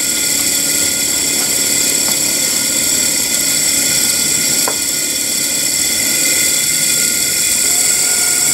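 Small homemade model dynamo running as a motor on a 3-volt battery, its open-stator armature and brushes spinning with a steady high whine. A light click about halfway through.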